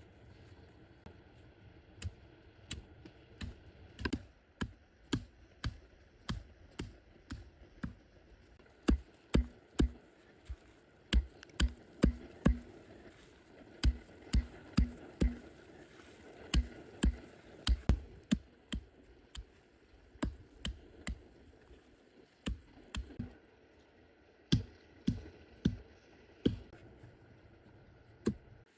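A long run of sharp knocks from a tool striking wood, about two a second with some in quick pairs. The blows are heaviest in the middle and lighter toward the start and end.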